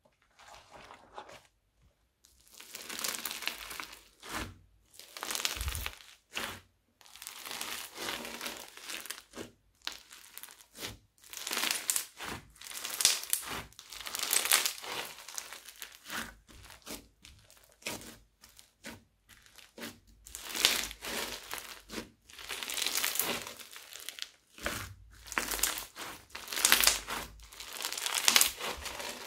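Floam, slime packed with tiny foam beads, squeezed and pressed by hand: repeated crackly, crunchy swells, each a second or two long, with short pauses between presses.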